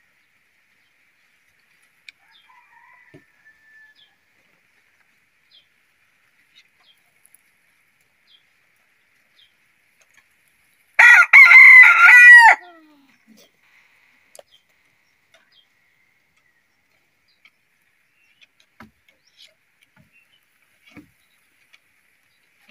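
Domestic rooster crowing once, a loud cock-a-doodle-doo lasting under two seconds about halfway through.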